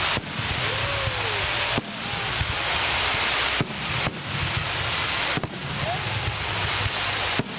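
Aerial fireworks bursting: about six sharp bangs a second or two apart over a continuous hiss.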